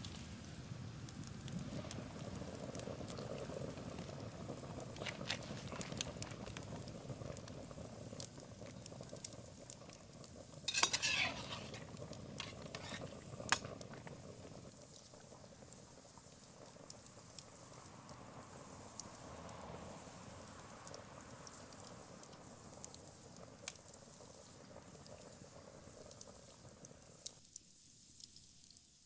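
Wood fire crackling under a large metal stew pot, with a loud clatter of metal about eleven seconds in, then a couple of sharp clicks, as the lid comes off and a fork works the meat. High-pitched insect chirping pulses evenly about once a second throughout.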